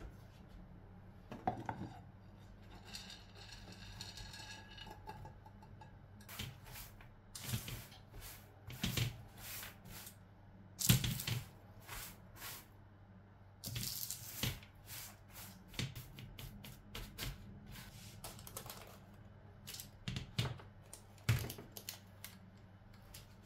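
Spatula stirring and scraping granola and dried fruit across a metal baking tray: an irregular run of scrapes, rustles and light clicks, busiest in the second half, over a low steady hum.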